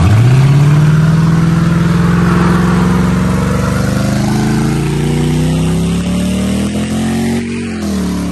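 Car doing a smoky one-wheel burnout: the engine revs up sharply at the start and is held at high revs, creeping slowly higher, while the spinning rear tyre hisses in the smoke. The revs drop about seven and a half seconds in.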